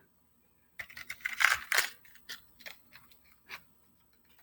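Packaging of a fishing tackle item being handled: a short burst of rustling and crinkling about a second in, followed by a few light clicks and taps.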